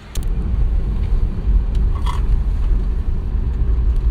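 Steady low rumble of a car driving, heard inside the cabin: engine and road noise, starting abruptly just after the start.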